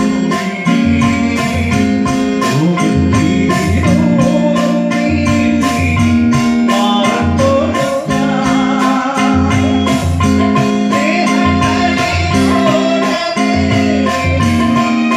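Live band music over a PA: a drum kit keeps a steady beat under a bass line and melody, with a man singing into a microphone.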